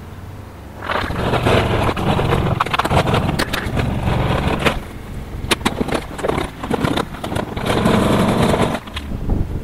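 Plastic pull wagon rolling over asphalt: its wheels rumble and rattle, with sharp clicks and clatters from the load of pebbles jostling in the tub. It starts moving about a second in, eases briefly around the middle, and stops shortly before the end.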